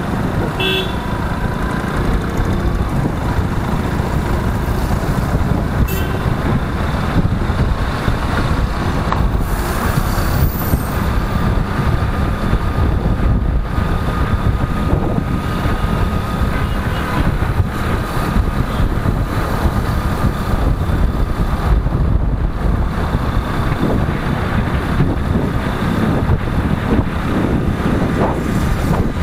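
Steady wind rush and road noise while riding a motorcycle through city traffic, with a faint steady whine throughout.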